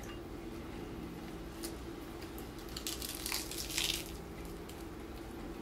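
A person biting into crispy fried-and-roasted chicken skin and meat. A burst of crackly crunches comes about three seconds in after a few small clicks.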